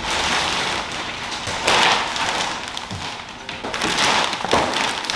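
Thick plastic wrapping being pulled back and crinkled off a kayak, rustling in several louder swells.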